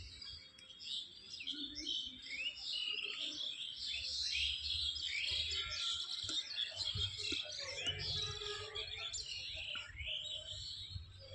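A chorus of many small birds chirping, dense overlapping short calls, many of them quick rising chirps, with a low rumble underneath.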